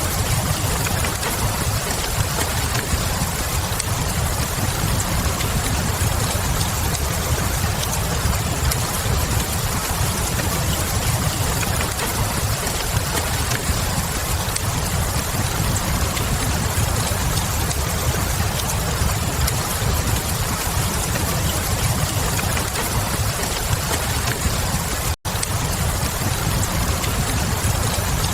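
Steady rain with a deep low rumble, mixed with faint crackling from a log fire. The sound cuts out for an instant about three-quarters of the way through.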